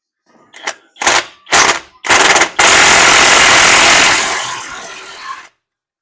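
Impact wrench on a hub assembly bolt: three short hammering bursts, then a long continuous run that tapers off and stops about five and a half seconds in, as the bolt breaks loose and spins out.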